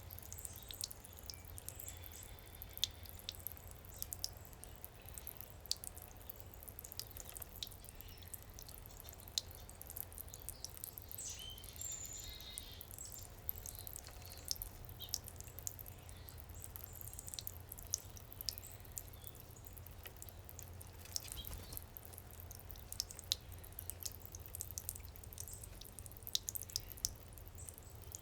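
Backyard garden fountain water dripping and splashing in quick, irregular drops over a steady low hum.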